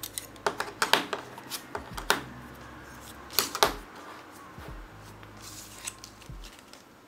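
Scattered light clicks and taps of carbon fibre drone frame plates and their plastic parts bags being handled and set down on a cutting mat, about a dozen irregular knocks with the sharpest in the first four seconds.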